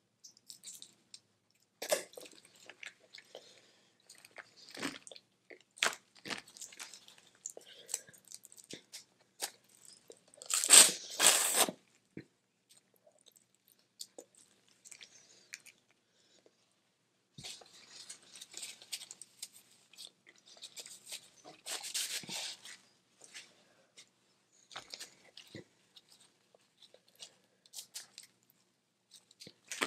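Close-up eating of boiled crawfish: shells cracking and being peeled, and chewing, in scattered short crackles and clicks with quiet gaps. A louder double burst of crunching comes about eleven seconds in.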